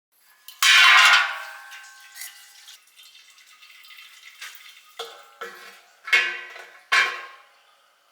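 Metallic clanks: one loud ringing strike about half a second in that fades slowly, then four shorter knocks with a brief ring between about five and seven seconds in.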